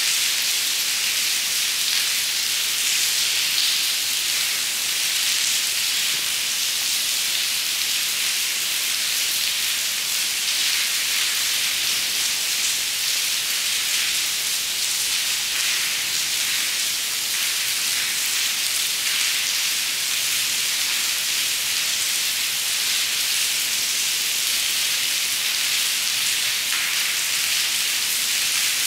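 Rain falling steadily onto the wet stone paving and puddles of a cloister courtyard: an even hiss with no let-up.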